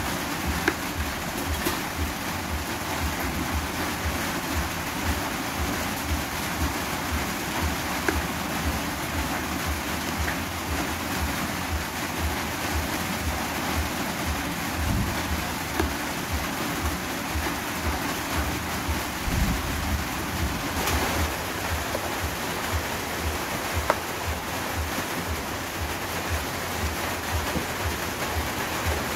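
A cleaver chopping eggplant on a plastic cutting board, many soft irregular taps, over a steady rushing noise.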